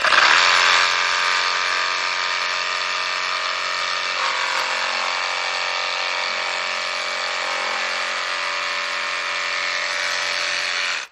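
Flex 2231 jigsaw running steadily at top speed with orbital action off, its blade cutting its own slot in the new chip guard to make it zero-clearance. The motor starts abruptly and cuts off near the end.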